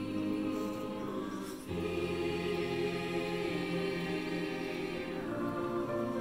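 Mixed choir of high-school voices singing sustained chords in parts, with a new chord beginning about a second and a half in.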